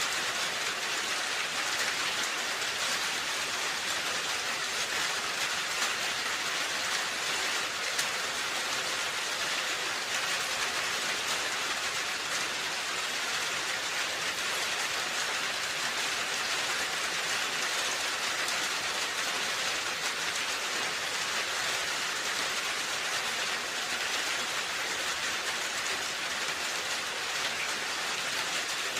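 Steady rain falling on a roof, a dense even hiss of drops with fine pattering.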